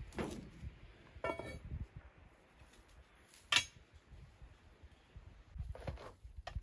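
Scattered clinks and knocks of a metal level and hand tool against concrete blocks being set level. One clink about a second in rings briefly, and a sharp knock about three and a half seconds in is the loudest, with two more knocks near the end.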